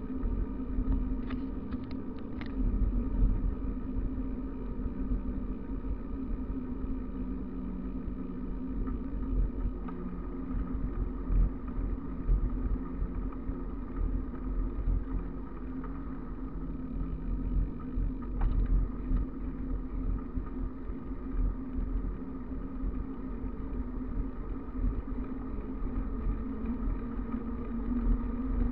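Wind rushing over the microphone and bicycle tyres on asphalt during a fast downhill ride: a gusty, steady rumble with a constant hum.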